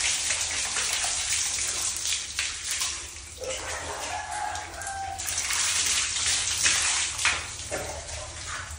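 Water poured from a plastic basin, splashing over a soapy dog and running onto a tiled floor as the dog is rinsed. The splashing is heaviest at the start and again a little past the middle.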